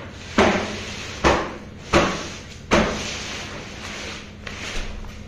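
Four loud, sharp knocks or slaps on a hard object, about three-quarters of a second apart, followed by softer handling noise, over a steady low hum.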